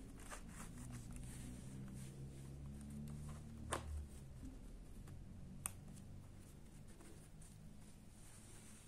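Faint handling of a crocheted yarn pouch, with small scuffs and two sharp clicks, one nearly four seconds in and one nearly six seconds in, from its metal snap fasteners being pressed. A low hum runs underneath.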